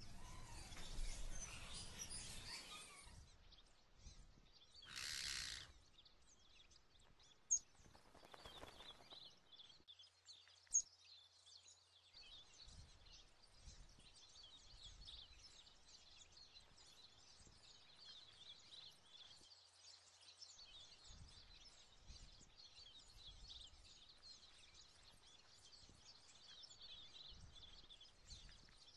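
Faint, low-level ambience: rustling noise in the first few seconds and again midway, two sharp clicks, then a continuous faint high chirping.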